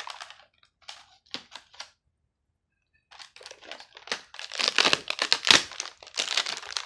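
Clear plastic packaging around a set of plastic popsicle moulds crinkling as it is handled and pulled open: a few short rustles, a pause of about a second, then a longer, louder run of crinkling.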